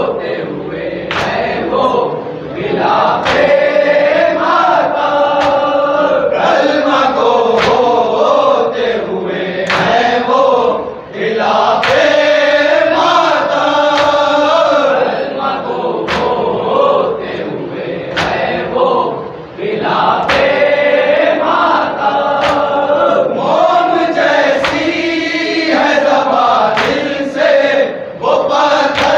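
A group of men chanting an Urdu mourning salam in chorus, led by a reciter, with sharp slaps a little over a second apart keeping time: the mourners' chest-beating (matam).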